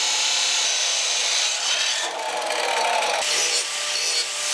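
Abrasive cutting wheels grinding through steel angle iron: an abrasive chop saw first, then a handheld angle grinder, with the sound changing abruptly twice as the cuts switch.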